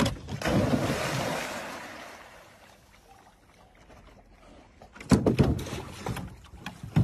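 A dog leaping off a dock lands in a lake with a splash whose rush of water fades over a couple of seconds. About five seconds in comes water splashing and dripping with a few sharp knocks as the wet dog hauls itself into a canoe.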